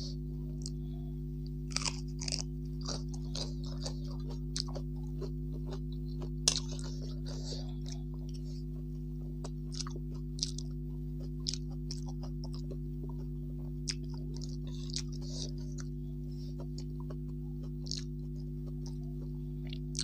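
Close-up eating sounds: a person chewing a mouthful of rice and leafy greens, with wet smacks and occasional crunches and sharp clicks. A steady low electrical hum lies underneath.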